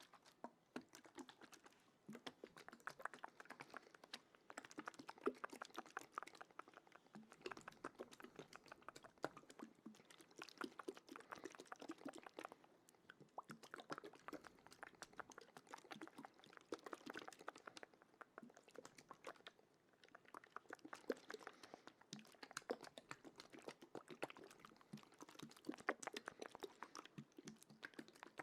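Quiet, close-miked ASMR trigger sounds: dense runs of fast, soft wet clicks and crackles coming in waves of a few seconds with brief lulls between them.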